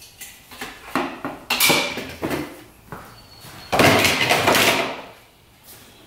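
Irregular clatter and knocks of tools and parts being handled, with two longer noisy rushes about a second and a half in and near four seconds in.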